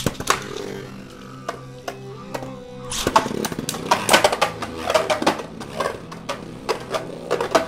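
Two Beyblades, a custom 3D-printed top against a Brave Valkyrie, launched into a stadium and spinning with a steady whir while clashing in rapid sharp clacks; the hits come thicker and harder about three seconds in.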